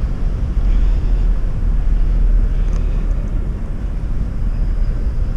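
Outdoor city-square ambience: a steady low rumble of road traffic.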